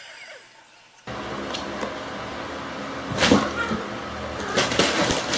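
Cats playing and scuffling around a draped cloth: a few sudden knocks and rustles over a steady low household hum, the loudest knocks about three seconds in and near the end.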